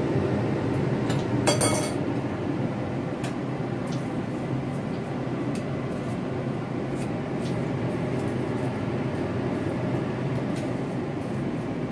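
Steady kitchen hum and hiss, with light clinks of a utensil against a ceramic bowl now and then as fried chicken and basil are tossed together, and a louder clatter about a second and a half in.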